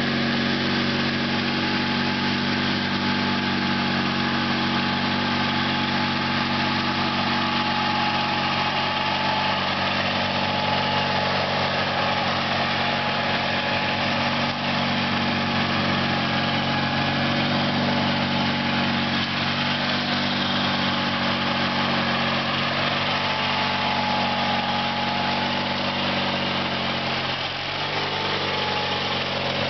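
1978 Sears GT/19.9 garden tractor's engine running steadily while it mows grass with its deck engaged; the engine pitch dips briefly near the end.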